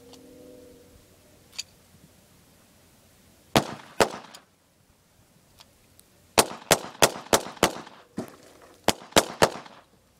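A 1911-style .22 pistol firing eleven shots: two, then a quick string of five about a third of a second apart, then four more.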